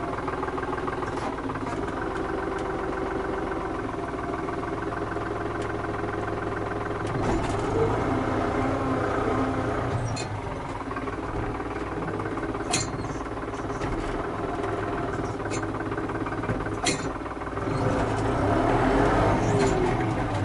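Tractor diesel engine running steadily, working harder from about seven seconds in and revving up near the end, with a few sharp metallic clanks along the way.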